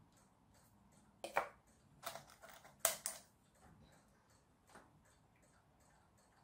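Sharp clicks and taps of small plastic parts and a plastic glue bottle being handled and set down on a wooden board: a cluster of clicks between about one and three seconds in, and a lighter tap near five seconds. A faint, regular clock-like ticking, a few ticks a second, runs underneath.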